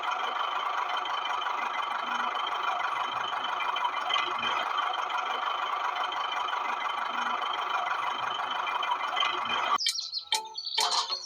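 Small electric motor of a homemade mini tractor model running steadily, then cutting off suddenly near the end; quick chirping sounds follow.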